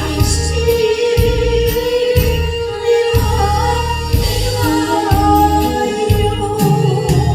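A song: a singer's melody over music with a steady beat and light percussion.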